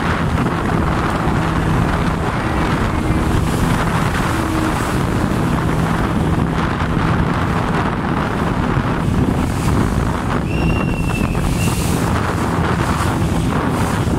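A small speedboat under way: wind buffeting the microphone over the steady drone of its motor and water rushing past the hull.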